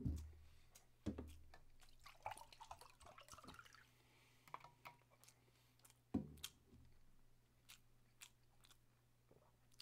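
Makgeolli poured from a plastic bottle into a glass mug, the pour rising in pitch as the mug fills, about two seconds in. Around it come a few dull knocks as the bottle and mug are handled, then faint chewing clicks.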